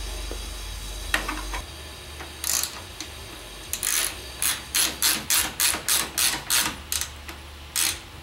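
Ratchet wrench turning the treadmill's tail roller bolt to tension the belt: a few separate clicks, then from about four seconds in a quick, even run of a dozen or so ratcheting strokes, about four a second. Under it is a low steady hum from the running treadmill.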